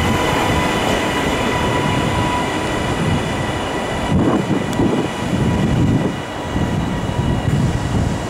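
TransPennine Express passenger train running away along the line, its wheels rumbling on the rails under a steady high whine. The whine dims about halfway through.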